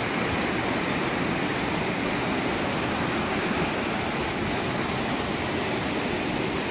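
Whitewater river rapids rushing over rocks: a steady, unbroken rush of water.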